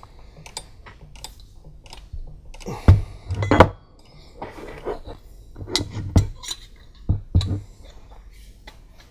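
Metal clinks and sharp knocks as a wrench works a fitting on an aluminium oil catch can and the can knocks against its steel bracket. The loudest knocks come in a cluster about three seconds in, with more around six and seven seconds.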